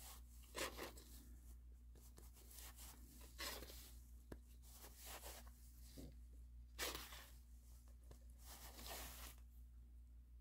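Black thread drawn by hand through punched holes in a washi-tape-covered paper piece during whipstitching: faint, short swishing rasps a few seconds apart, with light paper rustling. The two strongest pulls come about half a second in and near seven seconds.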